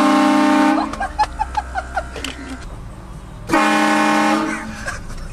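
Vehicle-mounted train horn blasting twice, each blast about a second long and the second about three and a half seconds after the first. Brief voice sounds come between the blasts.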